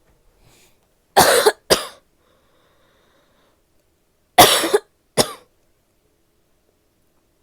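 A woman's barky coughs: two quick coughs, then after a pause of about three seconds two more.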